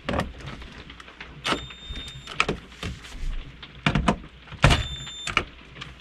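Cordless drill-driver whirring in two short runs, about a second and a half in and again near the end, driving the screws of a dash panel back in and only snugging them lightly so as not to strip them. Knocks and clicks of the tool and the panel being handled come in between.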